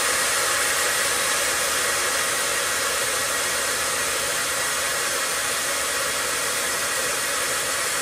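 Hand-held hot-air blower running steadily, its fan and air rush blowing heat onto a lithium iron phosphate battery's NTC temperature sensor to test the battery management board's high-temperature cutoff.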